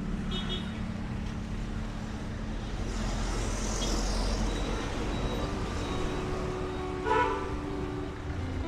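Road traffic with vehicles passing, and a short horn toot near the end.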